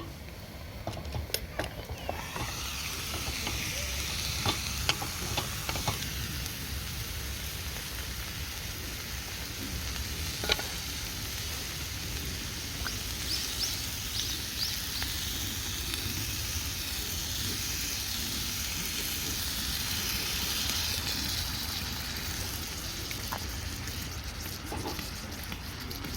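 Food sizzling in a hot pan, a steady frying hiss that sets in about two seconds in, with a few sharp clicks in the first several seconds.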